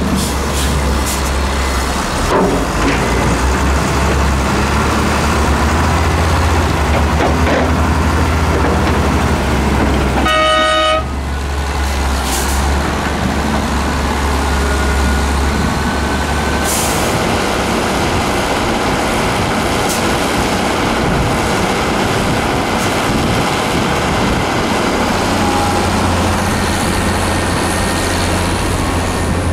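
Heavy diesel engines running steadily: a dump truck with its bed tipped up, and an excavator working alongside. A short horn toot comes about ten seconds in, and the engine note changes about halfway through.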